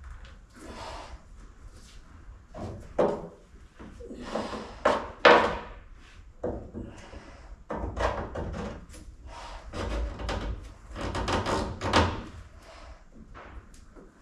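Wood scraping and knocking in irregular bursts of different lengths as a thin wooden strip is worked against a curved timber piece by hand.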